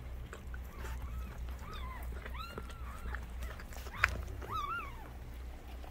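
Newborn pit bull puppy squealing in a series of short, high cries that rise and fall, about six in all. A single sharp click about four seconds in is the loudest moment.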